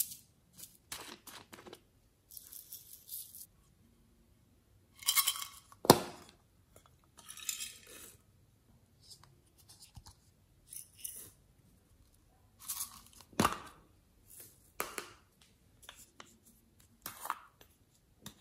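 Small plastic containers of slime add-ins handled and opened close up: rustling, scraping and sharp plastic clicks of lids and seals. The loudest clicks come about six seconds in and again near the middle.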